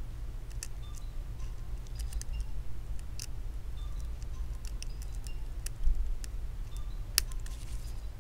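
Faint scattered clicks and ticks of a precision screwdriver seating tiny screws in the metal connector bracket inside an iPhone 8, with a soft low knock a little before six seconds in and one sharper click about seven seconds in.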